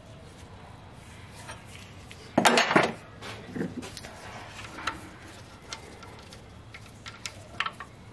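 Metal parts clinking and rattling as the timing chain and camshaft sprockets are handled, with one louder clatter about two and a half seconds in and scattered light clicks after it.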